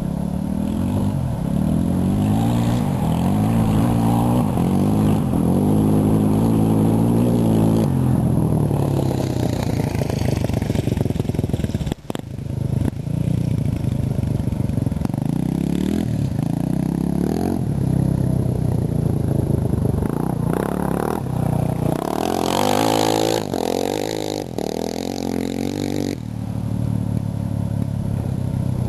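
Small petrol engine, off a motorcycle or similar vehicle, revving up and falling back again and again, with its pitch rising and dropping. It is loudest and highest near the end. The carburettor on this engine needs adjusting.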